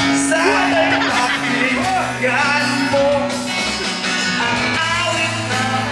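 A band playing a song with a singer, over keyboard and acoustic guitar with a steady bass line.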